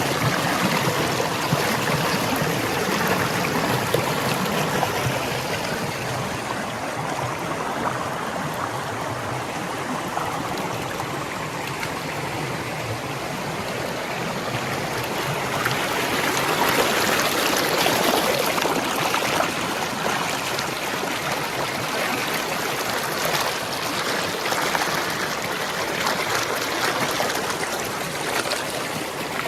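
Water running in a stream, a steady rushing and trickling that swells slightly about halfway through.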